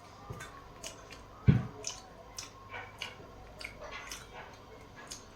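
Close-up wet chewing and smacking of someone eating curry, a string of short moist clicks, with one dull thump about a second and a half in.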